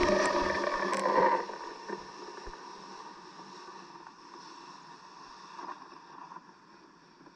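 Rushing noise of the rocket in flight, heard through its onboard camera. It drops off sharply about a second and a half in, then fades to a faint hiss with a few small clicks and rattles as the rocket climbs into thin air.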